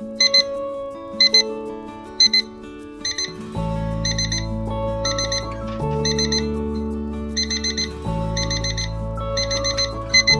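A SMARTRO SC93 weather station's alarm going off: high-pitched electronic beeps in groups about once a second. The groups grow from two beeps to four, the escalating pattern of a digital alarm clock.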